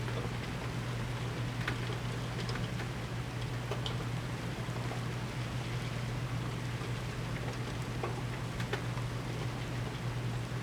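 Steady rain falling during a severe thunderstorm, with scattered sharp ticks of drops hitting nearby, over a constant low hum.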